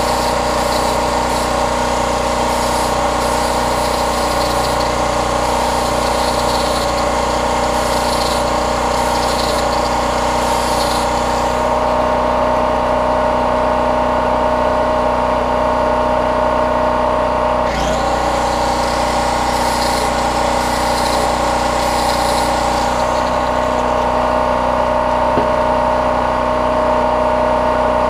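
Champion portable generator's engine running steadily throughout, powering an electric angle grinder that grinds steel in spells, a harsh high hiss for much of the first half and again briefly later, as the felling dogs of a chainsaw are sharpened.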